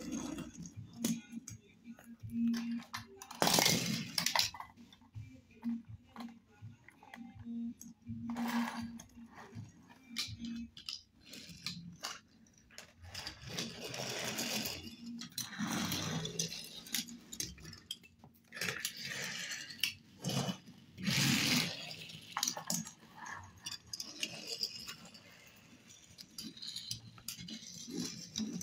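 Small die-cast toy cars being handled and pushed across a wooden surface: scattered clicks and clinks as they knock together and are set down, with several longer rolling, scraping sweeps of the wheels over the wood.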